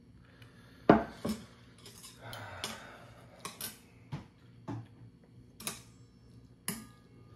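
A stainless steel bowl set down on a wooden table with a loud knock about a second in, followed by a second knock. Then metal chopsticks and a spoon clink against the bowl several times as noodles are stirred.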